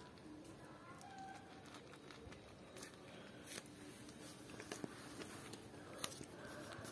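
Cat chewing dry kibble: faint, scattered crunches and clicks, a few sharper ones in the second half.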